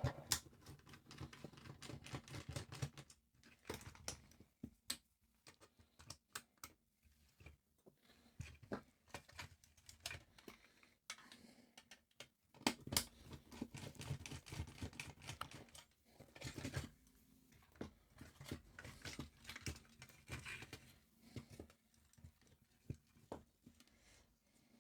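Faint, irregular clicks, taps and rustles of small plastic and metal parts being handled and prised apart while a handheld CB radio is dismantled to get its speaker out.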